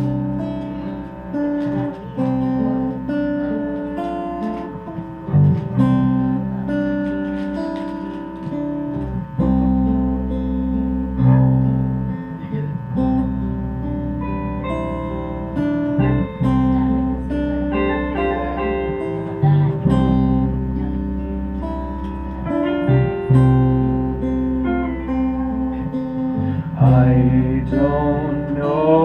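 A band strums acoustic guitars through a slow song intro, and deep bass notes join about nine seconds in.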